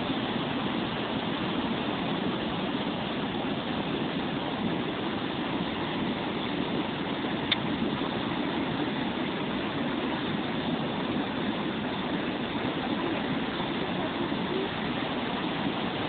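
Ardèche river in flood after heavy rain, brown water rushing steadily across a submerged road. A brief click about seven and a half seconds in.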